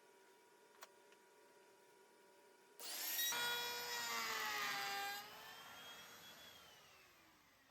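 Sliding table saw switched on about three seconds in, its motor whining up to speed and running loud for about two seconds. It is then switched off, and the blade coasts down with a slowly falling, fading whine.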